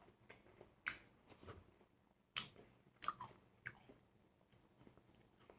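A person chewing firm watermelon flesh: faint, irregular wet mouth clicks and smacks, a few louder bites among them.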